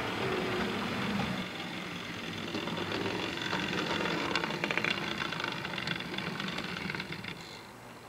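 OO gauge model train running on the layout track: a steady electric-motor whir with the wheels clicking over rail joints as the model Class 35 Hymek diesel approaches, then the running sound fades as it stops near the end.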